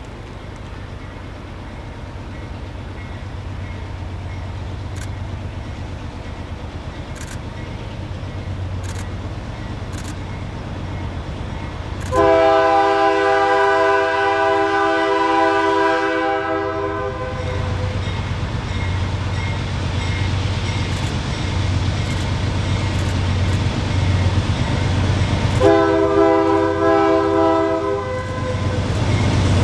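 Two GE C44-9W diesel locomotives working hard under load, their engine rumble growing steadily louder as they approach. The lead locomotive's air horn sounds a chord in one long blast about twelve seconds in and a shorter blast near the end.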